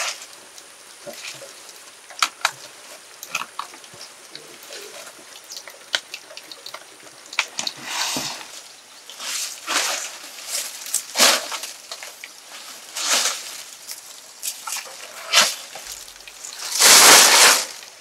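Fresh fan-palm fronds being handled by hand: bursts of rustling and swishing leaves with sharp snapping clicks, getting busier partway through, with the loudest rustle just before the end.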